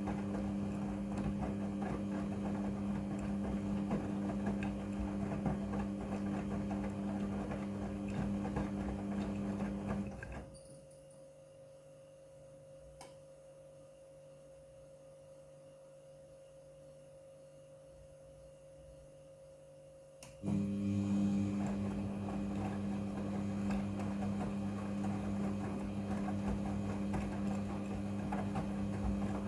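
Midea front-loading washing machine running with a steady motor hum, stopping about ten seconds in, then starting up again abruptly about ten seconds later, as the drum pauses between tumbling turns.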